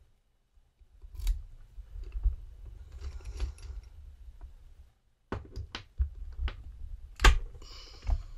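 Sharp metallic clicks and scraping from a small pin-tumbler lock and metal tools being handled as the lock is taken apart, over a low rumble of handling noise. The clicks come singly at first, then crowd together in the second half, the loudest about three-quarters of the way through.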